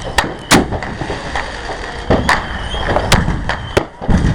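Fireworks going off: a string of sharp bangs and pops at irregular intervals, about two a second, over a steady low rumble.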